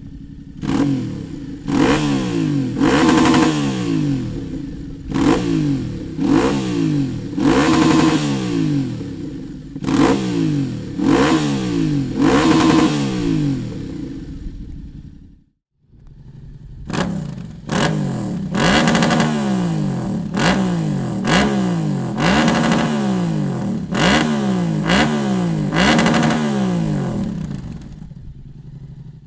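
Yamaha Ténéré 700's 689 cc parallel-twin engine, fitted with a Dominator aftermarket exhaust, revved in short throttle blips, each rising in pitch and falling back to idle. About nine blips, a brief cut about halfway, then another run of about eight.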